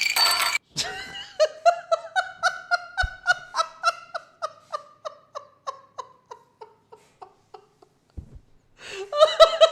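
A person laughing hard: a long string of high-pitched 'ha' bursts, about four a second, that gradually fades away, opened by a brief loud burst; a second bout of laughter starts near the end.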